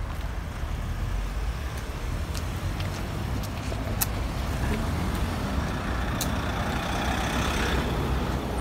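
Road traffic on the street alongside: a steady rumble of passing cars and tyres, with one vehicle growing louder about six to eight seconds in. A couple of sharp clicks stand out above it.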